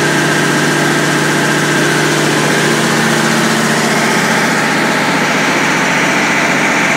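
Spray foam trailer rig's 50 kW generator and 10 hp air compressor running together: a loud, steady mechanical drone with a few held tones that shift slightly a few seconds in.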